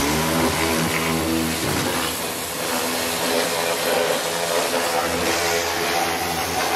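Pressure washer running steadily: the pump motor's hum under the hiss of the water jet spraying an engine bay.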